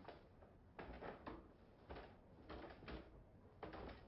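Faint, slow footsteps, about four soft steps spaced roughly a second apart.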